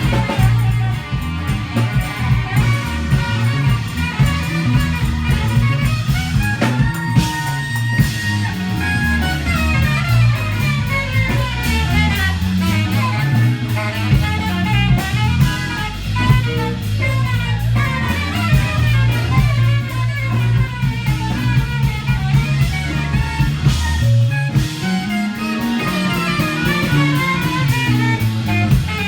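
Live band playing instrumental jazz-funk: guitar lines over drum kit and a strong, busy bass line. About 24 seconds in the bass drops out briefly and returns with a rising slide.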